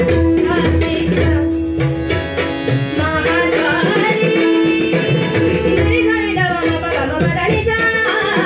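Marathi devotional abhang performed live. A woman sings over a harmonium holding a steady note, while tabla and pakhawaj drums keep a brisk, even rhythm.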